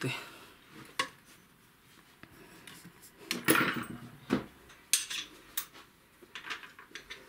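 Metal AR-15 rifle parts clinking and knocking as the scoped upper receiver is picked up and handled: a single click about a second in, a cluster of knocks in the middle, and a few sharp clinks after.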